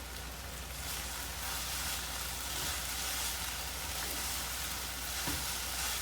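Stir-fried noodles with bean sprouts and garlic chives sizzling in a hot pan: a steady frying hiss over a low, steady hum.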